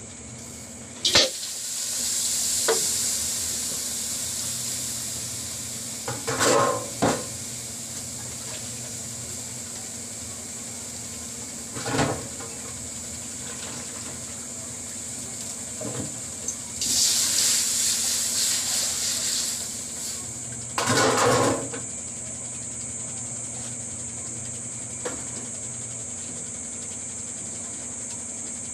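Sliced onion and ginger sizzling in a stainless steel wok, with a steady hiss and a few sharp clinks against the pan. A little past halfway, water is poured into the wok with a longer, louder rush, followed by another clatter.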